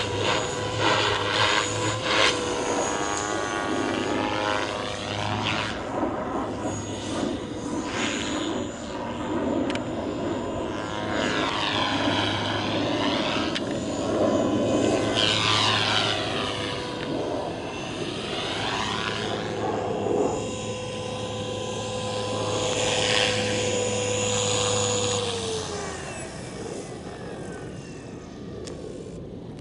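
Gaui X3 electric RC helicopter in flight: a steady motor whine with the rotor blades whooshing, swelling and fading as it manoeuvres overhead. Near the end the whine drops in pitch and the rotor sound dies away as it spools down after landing.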